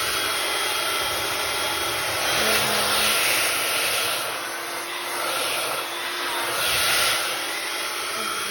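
1800-watt ionic hair dryer running on its higher speed: a steady rush of blown air that swells louder a few times.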